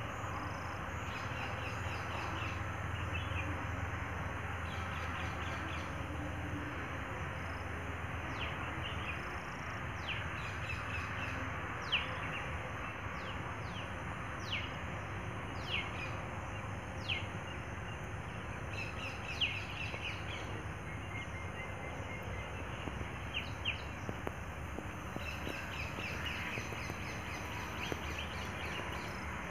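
Birds chirping over a steady outdoor background noise: clusters of quick high notes come and go, and through the middle there are about five sharp single calls that fall in pitch.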